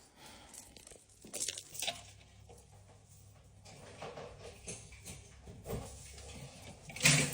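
Stiff dress fabric rustling and crinkling with the wearer's movements, in several short bursts, with a louder burst of noise near the end.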